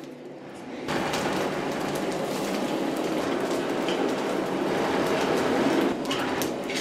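Blacksmith's coal forge fire roaring under air from the hand-worked bellows: a steady rushing rumble that starts suddenly about a second in, with a few light clicks near the end.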